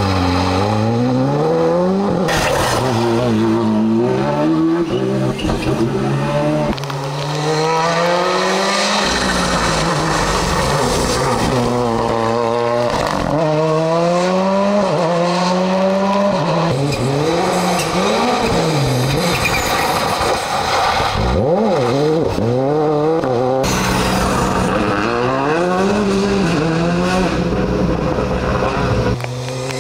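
Rally cars driven hard on a stage: engine pitch climbs and falls again and again through gear changes, in several separate passes cut one after another.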